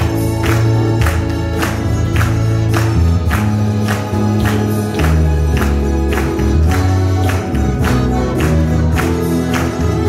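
Mandolins and guitars strumming a hymn together in a steady beat, with held bass notes underneath.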